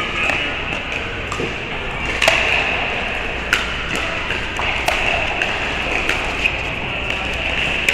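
Pickleball paddles striking the hard plastic ball and the ball hitting the court: a string of sharp pops, irregularly spaced about a second apart, the loudest a little past two seconds in. Under them runs the steady background noise of a large indoor hall.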